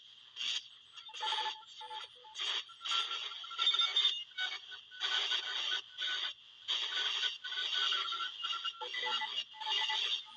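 Shortwave radio receiver tuned near 14 MHz giving out irregular, warbling bursts of garbled signal, each a fraction of a second to about a second long, over a steady high hiss.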